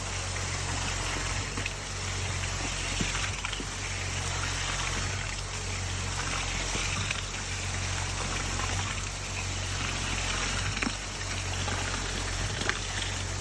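Concrete pump running with a steady low drone while wet concrete pours out of the delivery hose.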